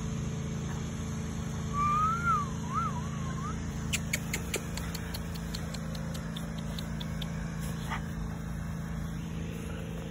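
A puppy's wavering whine, about a second and a half long, starting about two seconds in, over a steady low mechanical hum. A quick run of light clicks follows from about four to seven seconds in.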